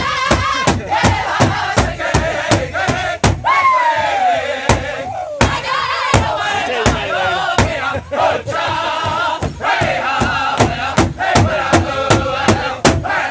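Powwow drum group singing in high voices around a large shared bass drum, struck together in a steady beat about three times a second. About three and a half seconds in, one voice lets out a long high cry that falls in pitch.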